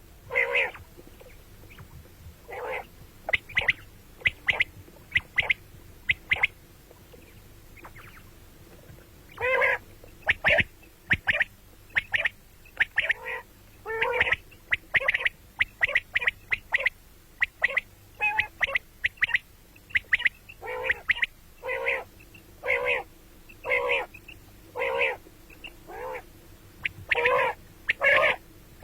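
Common quails calling over and over: short, sharp calls, often in quick runs of two or three, mixed with lower, fuller single calls.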